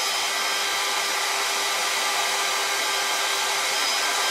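Cordless battery drill running at a steady speed, drilling a hole into a metal lathe saddle: an even motor whine.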